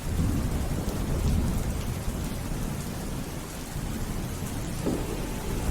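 Steady heavy rain with a deep rolling rumble of thunder, strongest in the first second or so.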